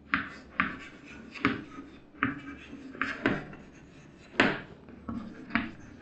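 Chalk writing on a blackboard: a string of short, sharp taps and scrapes, one with each letter stroke, irregularly spaced.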